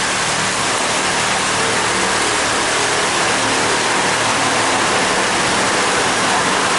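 Pontoon boat under way: steady rushing of water along the hull over the constant low hum of the boat's motor.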